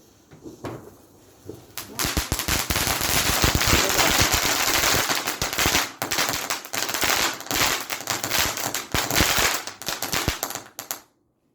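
A firework going off in a fast, dense string of crackling bangs, starting about two seconds in, running for around nine seconds and stopping suddenly.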